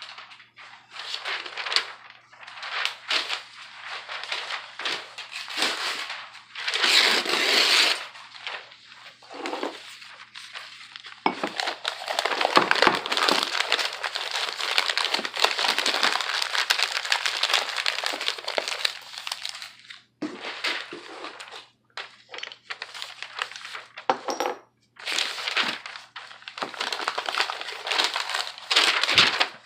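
Packing paper crumpling and rustling in irregular bursts as shot glasses are wrapped for a moving box, with a long stretch of steady rustling in the middle.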